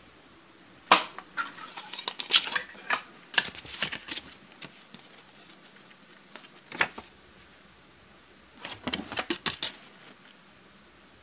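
Folded paper of a cassette tape's liner insert crackling and snapping as it is handled and unfolded, in three bursts of sharp crackles, the longest lasting several seconds near the start.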